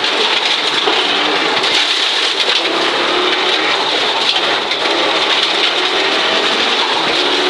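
In-car sound of a 1983 Audi Quattro Group B rally car at speed on gravel: a loud, steady hiss of tyres and gravel against the car, over the note of its turbocharged five-cylinder engine.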